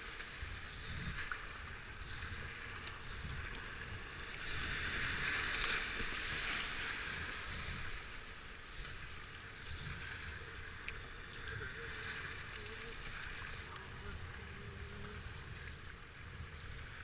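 Rushing whitewater of a flooded river around a kayak running rapids, swelling louder for a couple of seconds about five seconds in, with low rumbling underneath.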